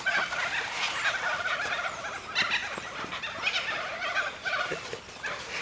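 Laughing kookaburras calling, a continuous rapid cackling chorus of repeated notes.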